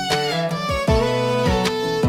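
Instrumental country music: fiddle and guitar over a steady beat of about two a second, without vocals.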